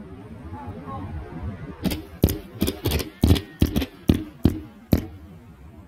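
30-shot 500 g firework cake, Pyroland's Ghost Stories, firing its shots in quick succession. About a dozen sharp bangs come at uneven intervals over roughly three seconds, starting about two seconds in.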